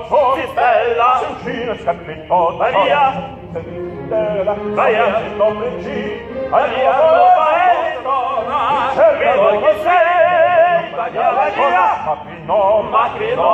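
Opera singing with a wide vibrato, in sustained phrases of a few seconds broken by short pauses.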